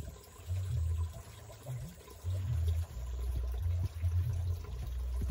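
Shallow stream water sloshing and trickling as a wooden stick is worked in it. Underneath is an uneven low rumble that comes and goes.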